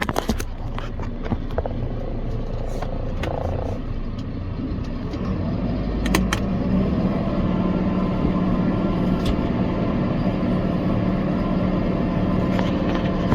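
Tractor engine running steadily while pulling a muck spreader across a wet field, with a few sharp knocks and rattles. The engine note grows a little stronger about five seconds in.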